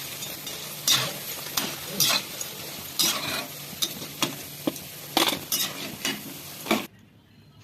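Onion pakoras sizzling as they deep-fry in hot oil, with a spoon scraping and stirring in the pan about once a second. The sizzle cuts off suddenly near the end.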